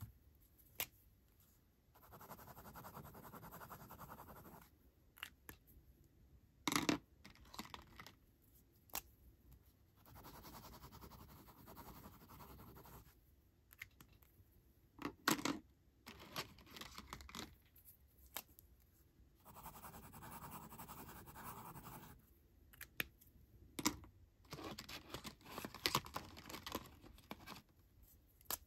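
Liquid rollerball pen with a 0.5 mm needle tip scribbling on thin notepad paper: soft, even scratching in spells of a few seconds. Between the spells come a few sharp clicks and knocks.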